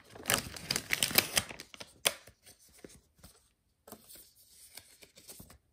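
Trading cards and plastic card sleeves being handled: quick rustling and sliding for the first couple of seconds, a sharp click about two seconds in, then quieter light ticks of handling.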